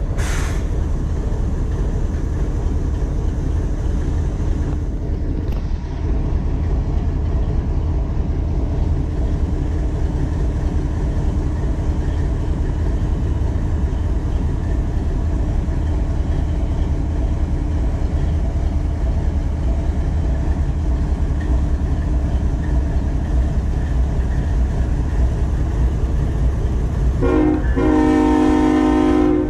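Diesel-electric freight locomotive idling: a steady, loud low rumble close to the unit. A short hiss comes right at the start, and near the end a chord of several steady tones sounds for about two seconds.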